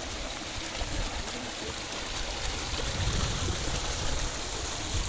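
Steady rushing of flowing water, with uneven low rumbling underneath that swells around the middle.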